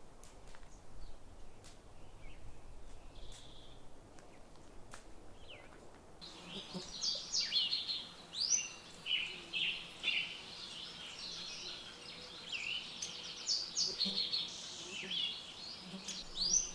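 Songbird singing: a rapid, continuous run of short downward-sweeping chirps that starts suddenly about six seconds in, after a stretch of only faint scattered chirps and ticks.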